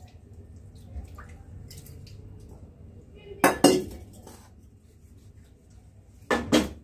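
Metal spoon clinking against the glass dessert bowls and the pot while caramel sauce is poured, in two quick pairs of clinks about three seconds apart, over faint room noise.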